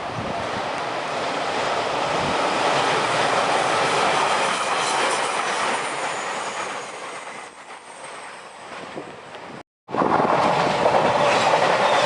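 Train passing over a level crossing, wheels clattering on the rails. The sound swells over the first few seconds and fades away by about seven seconds in. After a brief break in the sound, loud train noise starts again abruptly.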